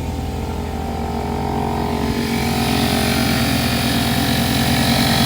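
Vehicle-mounted air compressor running while it inflates a freshly plugged tire, getting louder and hissier from about two seconds in.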